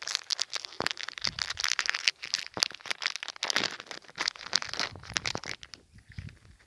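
Clear plastic lure packet crinkling and crackling as it is handled and opened to take out a soft plastic frog lure. The rustling thins out about five and a half seconds in.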